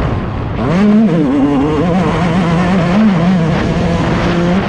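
Yamaha YZ 144's two-stroke engine, a 144 cc big-bore YZ125, ridden on a motocross track. The note dips, revs back up about a second in, then rises and falls as the throttle is worked, before dropping away near the end into a rushing noise.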